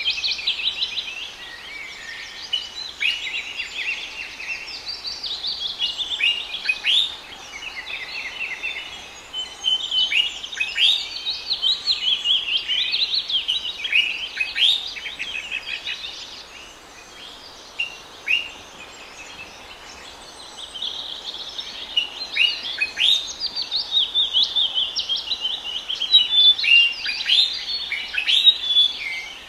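Small birds chirping and twittering in a busy chorus of quick, downward-sweeping chirps, thinning out for a few seconds past the middle before picking up again.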